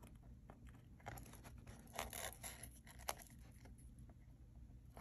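Faint rustling and a few soft ticks from fingers handling a journal cover and working thin elastic cord through the holes along its spine, the loudest about two and three seconds in.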